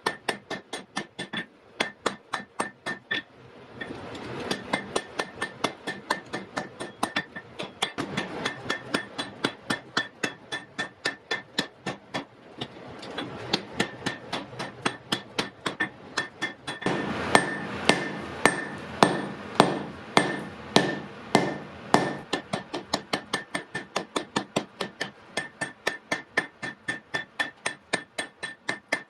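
Blacksmith's hand hammer striking hot iron on an anvil in a steady rhythm of about three blows a second, each blow ringing. The blows grow heavier for a few seconds past the middle.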